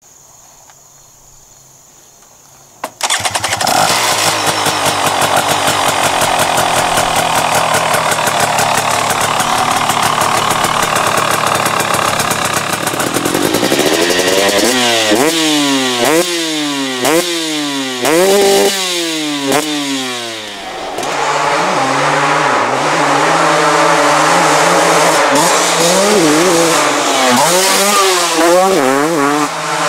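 The single-cylinder two-stroke engine of a 2023 KTM 250 SX starts abruptly about three seconds in and runs loudly with a rapid crackling beat. From about the middle on, it revs up and down over and over, roughly once a second, as the bike is ridden.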